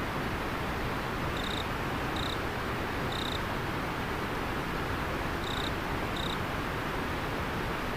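River water running with a steady rushing sound, and an insect giving short high chirps in groups of two or three.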